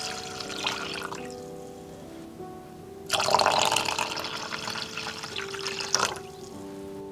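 Water poured from a jug into a metal saucepan of cut squash pieces, splashing and gurgling; one pour fades out a little after a second in, and a second, louder pour starts about three seconds in and stops about six seconds in. Soft background music plays throughout.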